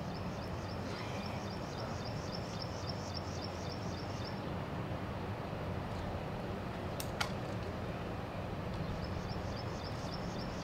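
Quiet shooting-range ambience with a steady low hum and a high, rhythmic chirping that stops about four seconds in and returns near the end. About seven seconds in come two sharp clicks close together as the trap shotgun is closed after loading.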